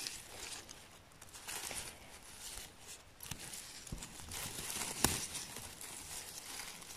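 Gloved hands rustling and crinkling in moss and forest litter while cutting chanterelles with a mushroom knife, with one sharp click about five seconds in.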